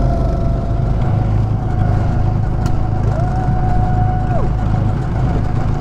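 Go-karts running on a track with a steady low rumble. About three seconds in, one kart's whine rises, holds for about a second, then drops away.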